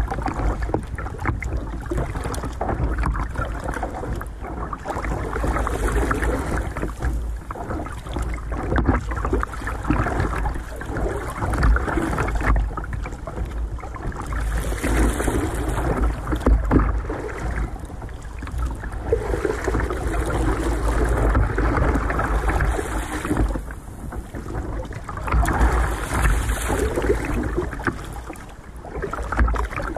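Sea water splashing and lapping against the hull of a plastic sit-on-top kayak rocking in choppy water, swelling and easing every few seconds, over a steady low wind rumble on the microphone.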